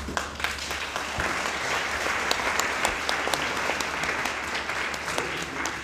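An audience applauding, building over the first second or two and then holding steady.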